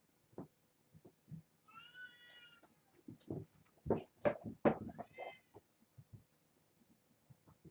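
A cat meows twice: one long high call about two seconds in and a shorter one around five seconds. Between them come several sharp knocks and thumps, the loudest sounds here.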